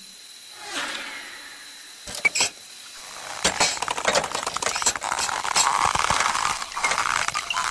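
Cartoon sound effects: a few sharp clicks, then from about three seconds in a dense, rapid clatter of small rattling clicks.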